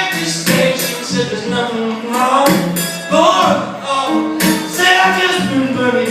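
Live country-blues song: a male voice singing over strummed acoustic guitar.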